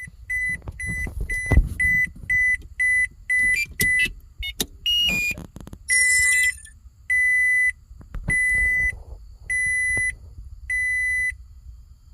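2004 Scion xB instrument-cluster warning chime beeping cleanly, its bad board capacitor now replaced. A fast run of short beeps, about two and a half a second, gives way after a few clicks and knocks around four to five seconds in to slower, longer beeps a little over once a second.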